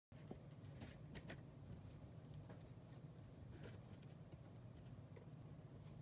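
Near silence: a faint steady low hum with a few scattered faint ticks.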